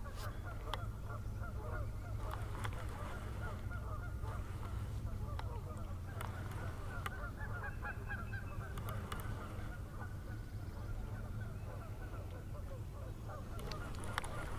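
A flock of geese honking, many overlapping calls throughout, over a steady low rumble.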